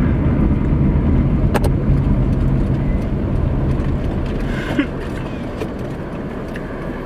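A car's engine and road noise heard from inside the cabin, a steady low rumble that eases off after about four and a half seconds, as the car pulls over to let another car pass. A single sharp click about a second and a half in.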